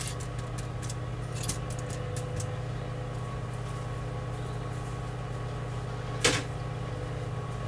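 Steady low hum with a few faint taps, and one sharp click or knock about six seconds in.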